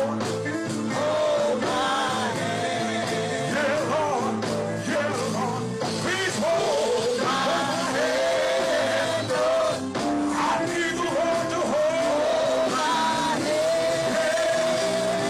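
Gospel music in a church service: singing with instruments behind it, a voice holding long, wavering notes.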